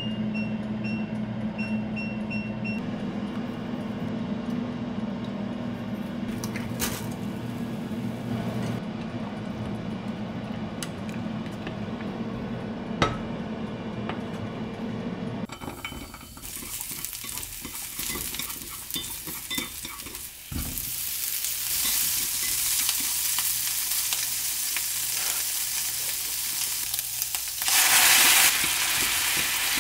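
Steady hum with a short run of beeps at the start. About halfway through, food starts sizzling in a hot pan, and the sizzle jumps louder near the end.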